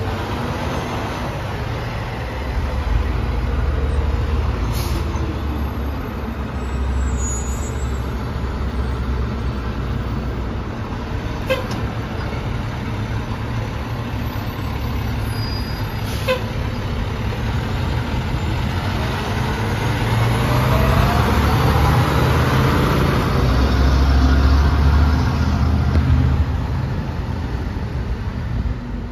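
A heavy fire-rescue truck's diesel engine rumbling as it pulls away towing a boat trailer, then revving up as it accelerates about two-thirds of the way through. Two short clicks come in the middle.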